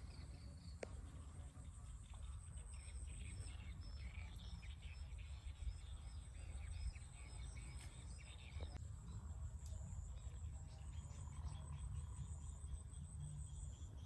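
Insects trilling steadily at a high pitch, with a few seconds of quick repeated chirps early in the middle, over a low rumble.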